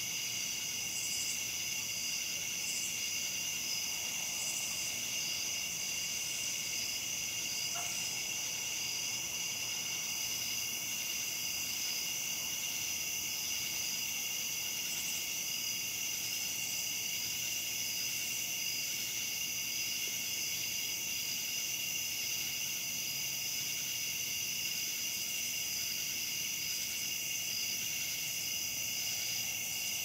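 Steady night chorus of crickets and katydids: a continuous high trilling in several pitch layers, with no breaks.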